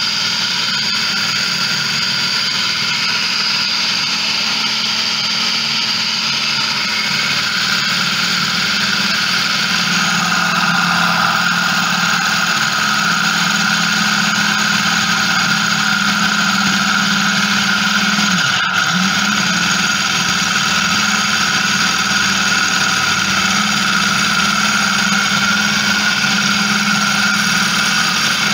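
Electric food processor motor running steadily at speed, its blade chopping minced chicken with green chilies and coriander, a steady hum with a higher whine above it. The pitch dips for an instant about two-thirds of the way through.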